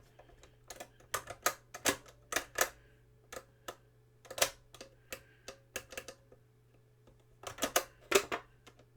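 Mechanical piano-key buttons of a Commodore Datassette cassette deck clacking as they are pressed and released, in irregular sharp clicks with a quick flurry near the end.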